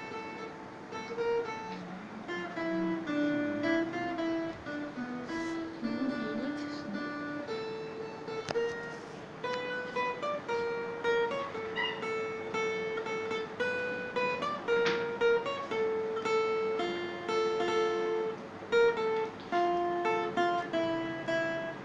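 Acoustic guitar played solo, a melody picked out note by note, some notes held longer than others.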